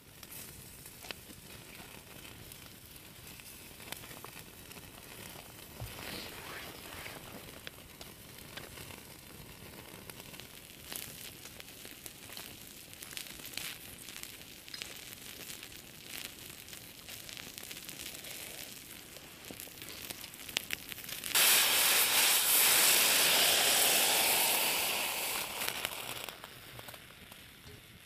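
Campfire crackling with scattered small pops. About two-thirds of the way through, steak hits a hot pan with a sudden loud sizzle that fades over about five seconds.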